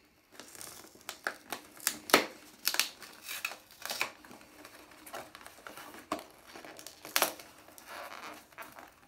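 A box of tampons being pried and torn open by hand: irregular crinkling and sharp tearing cracks of the packaging, the loudest about two seconds in and again about seven seconds in.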